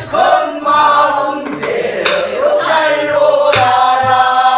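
A group of voices singing a Korean Namdo folk song in unison, repeating a line after the teacher. A single stroke on a buk barrel drum comes about three and a half seconds in.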